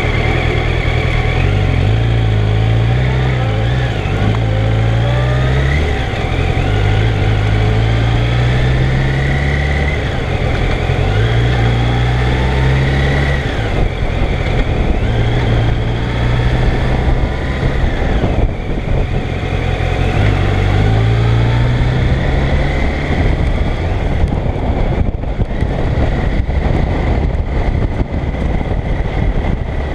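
Yamaha FZ1 Fazer's inline-four engine pulling away from a stop and accelerating through the gears. Its pitch climbs and then drops at each upshift, several times over. In the last few seconds it settles into a steadier cruise.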